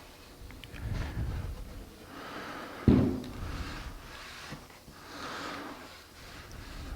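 Cloth rag rubbing oil finish into wood in slow, soft strokes, with a low thud about a second in and a single sharp knock just before three seconds.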